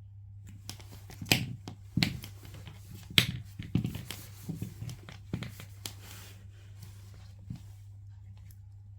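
Irregular sharp clicks and rustles of spark plug HT leads and multimeter test probes being handled while the leads' resistance is measured. The handling is busiest in the first half and dies away about three quarters of the way through.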